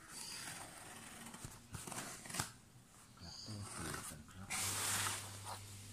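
Packing tape being picked at and peeled off a cardboard box, with scrapes and taps of fingers on the cardboard and a longer tearing rip of tape about four and a half seconds in.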